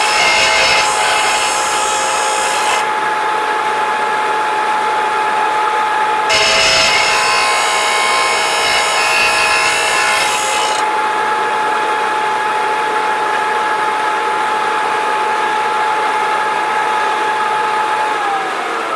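Electric grinder running with a steady whine while grinding the side of a steel chainsaw bar flat: a harsh hissing rasp at the start and again for about four seconds in the middle, where the bar is pressed to the abrasive. Near the end the motor is switched off and its whine falls as it spins down.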